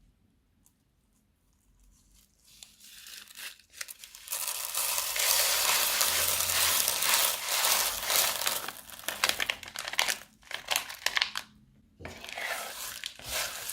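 Crunchy slime being squeezed and pulled by hand, a dense crackling with many small pops. It starts about four seconds in after near quiet, dips briefly near the end, then resumes.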